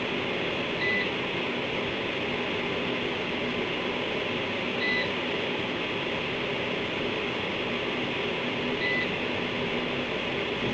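A short, high electronic beep repeating every four seconds, three times, over a steady hiss and faint hum.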